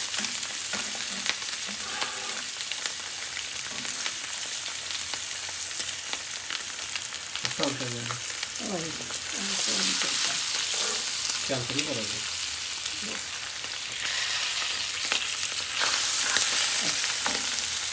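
Whole pomfret shallow-frying in hot oil, a steady sizzle that grows louder about ten seconds in and again near the end. Light clicks and scrapes of a metal spatula against the pan are heard as the fish are moved.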